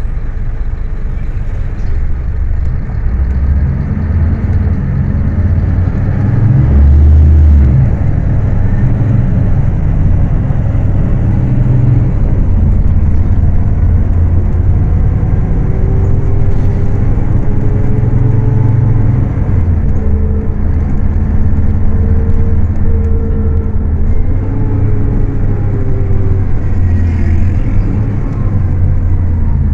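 Diesel engine of a Scania K310UA city bus running under way with a heavy, steady drone. It swells louder a few seconds in, and its pitch climbs and then falls back through the second half as the bus accelerates and eases off.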